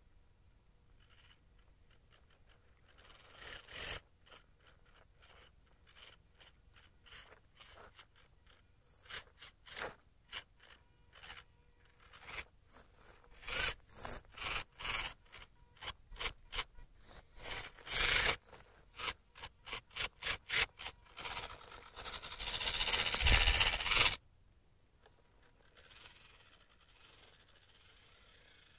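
Gritty crunching and scraping on loose sand and dirt in many short bursts, sparse at first and coming thick and fast after the first third. Near the end a louder unbroken scrape runs for about two seconds, then cuts off sharply.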